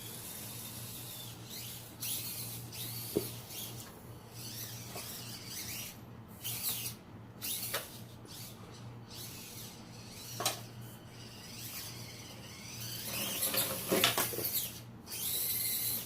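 Axial SCX24 Deadbolt micro RC crawler driving in short stop-start bursts, its small electric motor and gears whining up and down in pitch, with clicks and scrapes of the tyres and chassis on the obstacle. The busiest and loudest stretch comes near the end.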